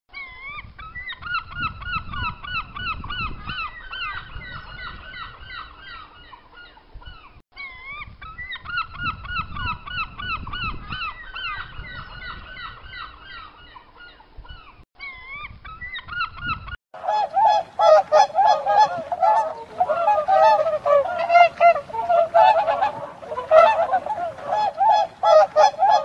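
A flock of flamingos calling with rapid, repeated nasal honks. About 17 seconds in, the calling changes to a louder, lower and denser honking chorus.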